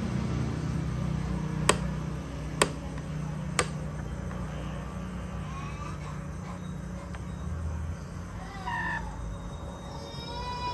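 Ford Ranger power side-mirror actuator being driven downward: three sharp clicks about a second apart over a steady low hum, with faint high chirps later on.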